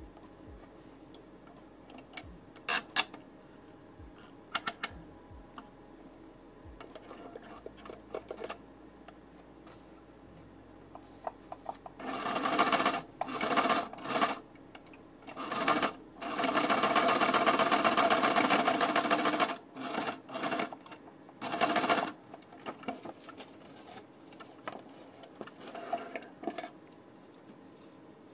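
Electric sewing machine stitching through a paper journal page in several short runs. The longest run lasts about three seconds, and a few sharp clicks come in the first seconds.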